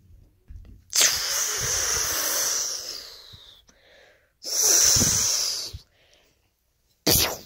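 A child's mouth-made sound effects for a toy battle: two long hissing "pshhh" blasts, the first about a second in and fading over a couple of seconds, the second shorter, then a quick puff near the end.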